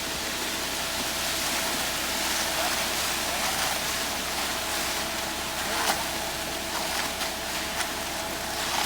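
Steady rushing hiss of a concrete pour, with wet concrete being discharged and spread, over a faint steady machine hum.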